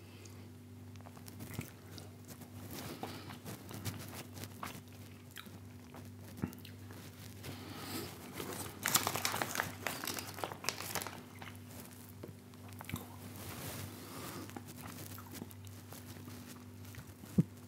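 Chewing and small mouth clicks of someone eating a soft Quorn vegan mini fillet, with a louder stretch of crinkling about nine seconds in as the plastic packaging tray is handled.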